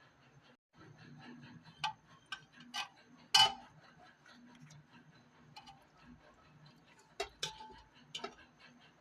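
Rapid, even ticking about four to five times a second, over which a kitchen utensil clinks against cookware several times, loudest about three and a half seconds in.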